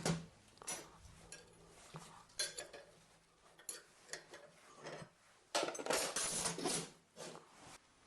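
Metal objects handled and set down, giving a string of separate sharp clinks and knocks, with a denser metallic clatter for about two seconds past the middle.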